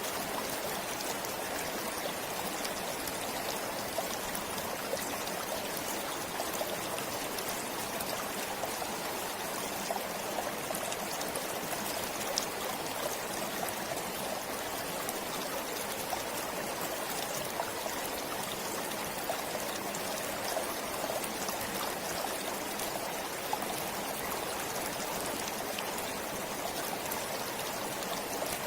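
A stream flowing steadily: an even rush of running water with small splashes and trickles.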